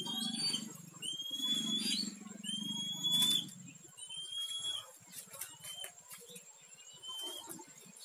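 A bird whistling short rising notes, one about every second. Rustling as a wooden bird cage is carried, with a sharp knock a little after three seconds as the cage is set down on the ground.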